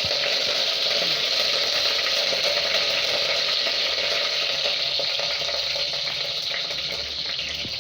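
Mustard seeds and curry leaves sizzling and spluttering in hot oil in a pan, a tempering. It is a steady sizzle that eases slightly near the end.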